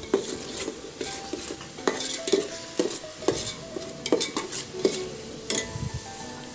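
A spoon stirring a thick spice paste frying in ghee and oil in a pan: it knocks and scrapes against the metal about twice a second over a light sizzle.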